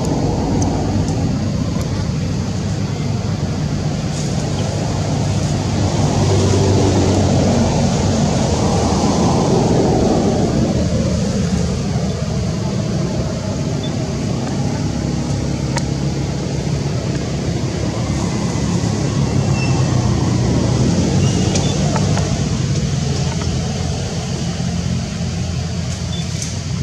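Steady low rumble of motor vehicles running, swelling louder about six seconds in and easing off after about ten seconds, then rising again about twenty seconds in.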